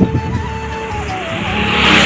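A car passing close by, its tyre and engine noise swelling near the end, over background music with a slow melody.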